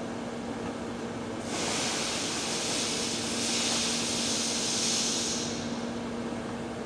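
TIG welding on heavy-wall pipe: a steady electrical hum, with a loud arc hiss that comes in about a second and a half in and stops about four seconds later.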